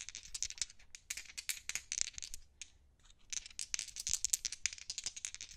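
Dice rattling and clattering as they roll: a fast, dense run of small sharp clicks, with a brief lull about two and a half seconds in.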